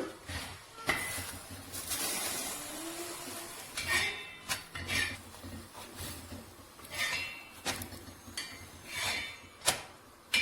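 Kitchen utensils and pans being handled: several light knocks and clinks with some scraping in between.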